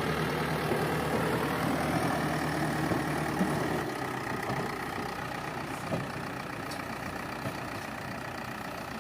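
Heavy diesel engine running steadily at a low idle, easing a little about four seconds in.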